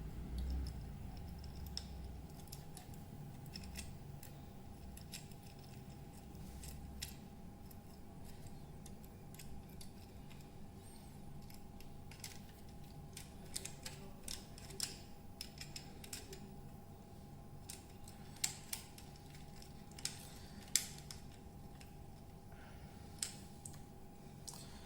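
Scattered small clicks and scrapes of a screwdriver and wire being worked into the terminals of a power socket while the neutral wire is fastened, over a faint steady hum.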